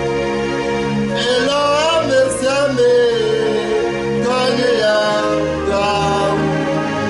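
A man singing over instrumental backing, holding long notes.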